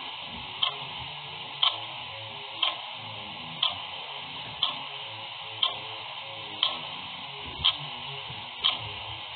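Clock ticking steadily, one sharp tick each second, over a steady hiss.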